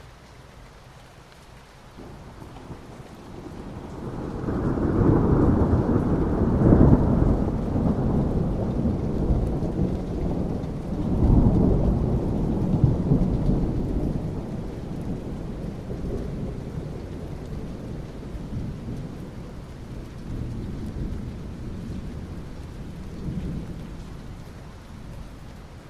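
Soft rain falling steadily on asphalt, with a long roll of thunder. The thunder builds a few seconds in, peaks twice and then slowly rumbles away.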